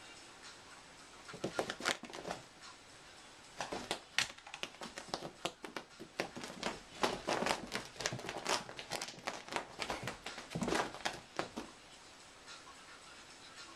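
A black kitten's claws and paws scrabbling and skidding on a vinyl floor as it pounces, in flurries of scratchy clicks, busiest from about five to eleven seconds in.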